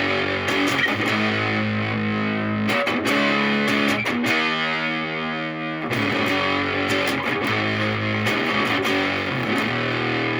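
Stratocaster electric guitar through a Moollon Fuzz 14, a silicon BC108 Fuzz Face–style pedal, into a Marshall Valvestate amp, playing fuzzed chords. Fresh strums come every second or two, and the chords ring on between them.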